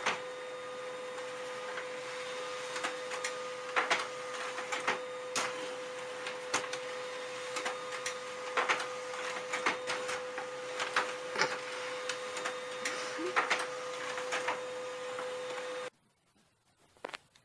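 Small desktop laser printer running: a steady mechanical hum with one held tone, broken by frequent irregular clicks and clacks. It cuts off suddenly about sixteen seconds in.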